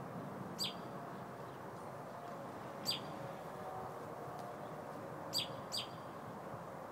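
Robin giving short, sharp, high calls that each sweep downward in pitch: four calls, the last two close together about five and a half seconds in, over steady low background noise.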